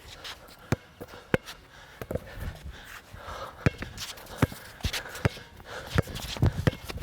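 Basketball being dribbled on a hard court: a sharp bounce roughly every three-quarters of a second.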